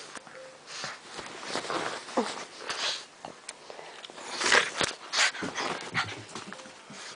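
A pug playing rough with a large plush tiger toy: irregular short, noisy breaths and scuffling against the stuffed fabric, with a brief falling whine about two seconds in and the loudest bursts around four and a half to five seconds in.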